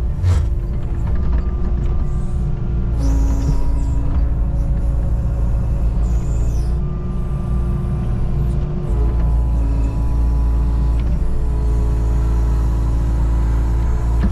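Kubota KX019-4 mini excavator running under load, heard from inside its cab: a steady diesel rumble with a hydraulic whine that shifts pitch several times as the boom and bucket are worked. Two brief hisses come about three and six seconds in.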